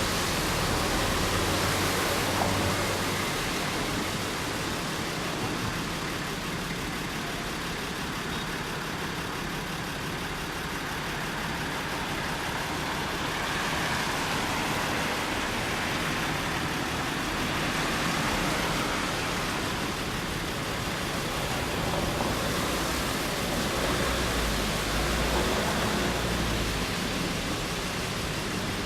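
Steady rushing running noise of an electric train on the line, an even hiss without distinct knocks or a clear rising or falling whine.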